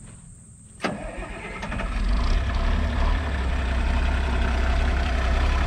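Diesel tractor engine starting: a click about a second in, then the engine catches, builds up over about a second and settles into a steady idle.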